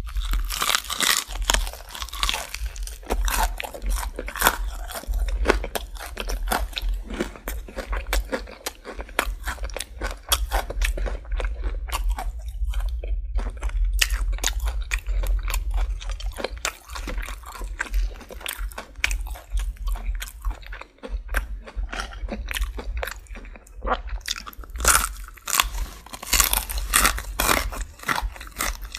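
Close-miked chewing of crispy fried chicken: crunching breading and wet chewing in quick, irregular crackles. Louder crunching comes about a second in and again near the end.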